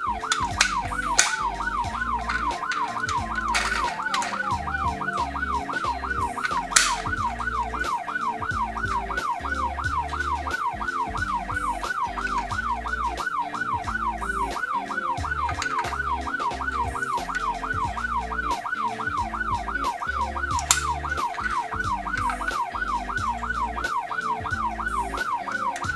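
Electronic siren of a toy ambulance mini car, rising and falling quickly about twice a second without a break, with a few sharp clicks over it.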